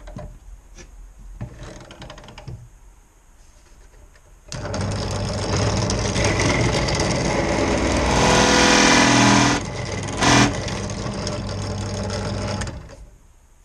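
A few light knocks, then a drill starts about four and a half seconds in and runs for about eight seconds, boring a 35 mm hinge cup hole a little deeper with a flat-cutting bit. It is loudest in the middle stretch as the bit cuts, and stops shortly before the end.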